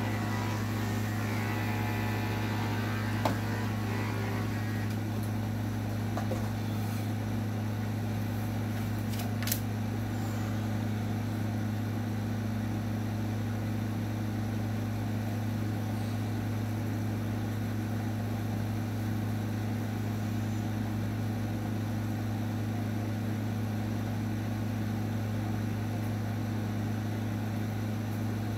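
Electric dog grooming clippers running with a steady low hum. Two sharp clicks come about three and nine seconds in.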